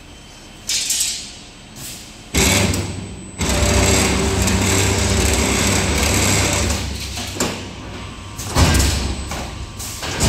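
SGW16D CNC stirrup bending machine's feed and straightening rollers pulling coiled steel bar straight, a loud steady running noise with a low hum. It starts about two seconds in, eases off around seven seconds, and a short loud clatter comes near the end.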